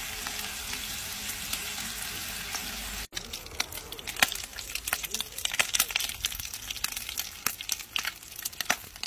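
Bacon frying in a cast-iron pan: a steady sizzling hiss at first, then, after a brief drop-out about three seconds in, the browning bacon crackles and spits with many sharp pops.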